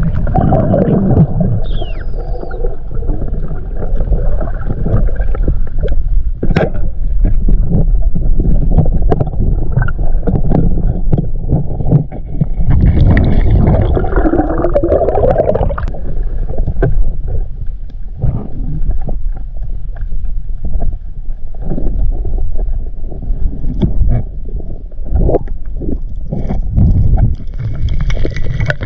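Muffled underwater audio from a camera in a waterproof housing while spearfishing on a reef: a continuous low rumble of moving water with scattered clicks and knocks. It swells louder about halfway through.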